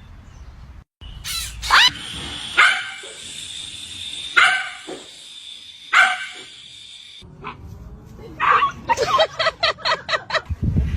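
A dog barking: a few separate barks spaced a second or two apart, then a quick run of short barks near the end.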